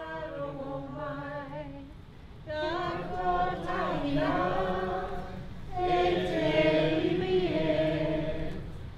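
A group of men and women singing together unaccompanied in long held notes, in three phrases with short breaths between: a Māori waiata sung in support after a speech.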